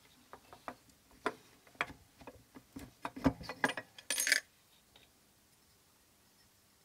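Small clicks and knocks as the long output reflector is worked loose from its mounts in a plastic laser scanner housing, with a short scrape about four seconds in.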